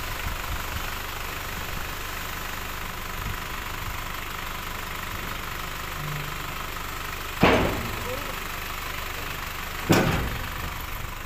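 Small dump truck's engine running steadily while the emptied tipping bed is lowered, with two loud metal bangs about two and a half seconds apart near the end as the bed and tailgate come down.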